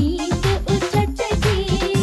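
Haryanvi folk song playing: a melody line over steady drum beats that each drop in pitch, about four a second.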